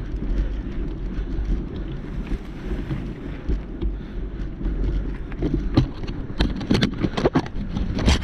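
Wind buffeting the microphone over the rumble of a mountain bike on rough trail, with a run of sharp, irregular knocks and rattles over the last few seconds as the bike goes over rougher ground.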